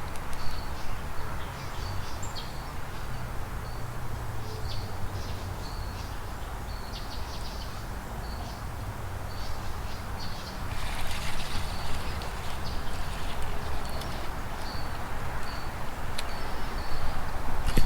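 Small birds chirping, short calls repeated again and again, over a steady low rumble, with a brief hissing rustle about eleven seconds in.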